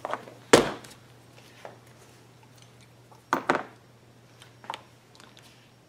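Small metal parts and tools being picked up and set down on a diamond-plate steel workbench: a sharp knock about half a second in, two quick clicks a little after three seconds, and a few fainter clinks, over a steady low hum.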